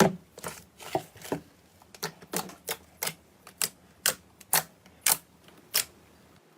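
Slime making a run of sharp, crisp popping clicks, two to three a second, that stop shortly before the end.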